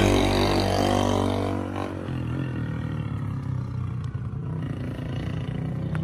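An engine running steadily with a constant pitch, loud for the first two seconds, then dropping off to a fainter, steady engine hum.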